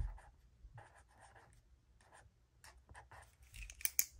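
Zebra Clickart marker pen drawing short wavy swatch strokes on planner paper, a scratchy stroke-by-stroke rub of the felt tip, followed by a few sharp clicks near the end.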